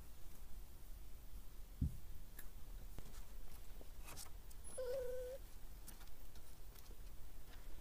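A puppy gives one short, steady whine a little under five seconds in, over scattered faint clicks and a low thump about two seconds in.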